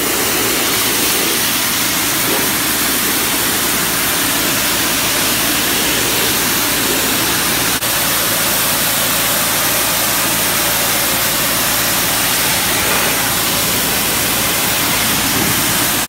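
Pressure washer spraying a high-pressure fan of water onto concrete bleacher floors, rinsing off loosened paint chips: a loud, steady hiss. It breaks for an instant about halfway through.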